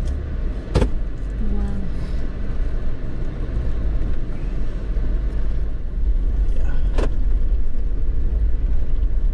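Jeep driving slowly over a rough, rocky gravel track: a steady low rumble of engine and tyres, with two sharp knocks, one about a second in and one about seven seconds in.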